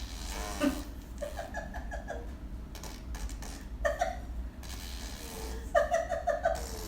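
Five-month-old baby vocalizing in three short, choppy bursts of high-pitched pulsed voice sounds, the baby's attempts at a "brrr" mouth sound.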